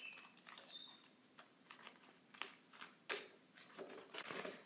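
Soft rustling and clicking of polymer banknotes and plastic binder pages being handled and turned, in scattered short bursts, the sharpest about three seconds in. Two faint short high chirps in the first second.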